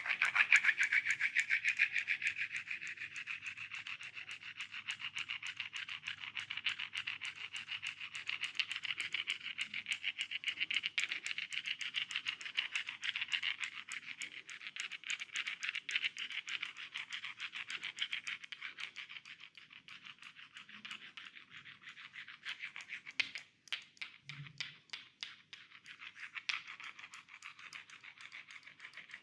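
Hands rubbing and scratching rapidly over hair and skin during a head and neck massage, a fast rhythmic run of scratchy strokes, several a second. It breaks off briefly about three-quarters through and then carries on softer.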